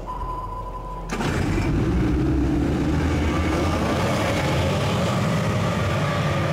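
A steady high tone for about a second. Then, suddenly, a pack of racing outboard motors open up at full throttle as the powerboats launch from a standing dock start, their pitch rising as they accelerate away, and the engine noise holds loud after that.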